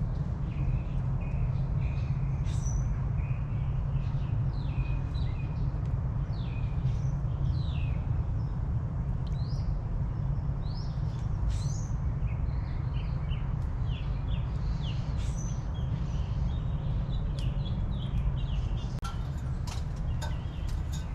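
Several small birds chirping and calling, many short quick notes one after another, over a steady low rumble.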